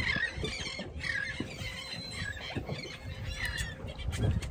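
Birds calling in short, repeated squealing chirps, over a low rumble.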